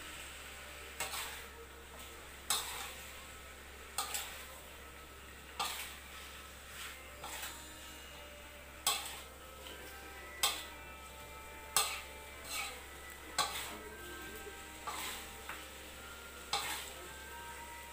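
Metal spatula scraping and knocking against a wok as eel pieces in chili spice paste are stir-fried, with sharp clacks about every second and a half over a steady sizzle of frying.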